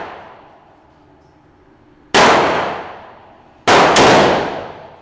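Three shots from a .223/5.56 mm Bushmaster rifle: one about two seconds in, then two in quick succession near the end, each echoing off the indoor range's concrete walls. The tail of an earlier shot fades away at the start.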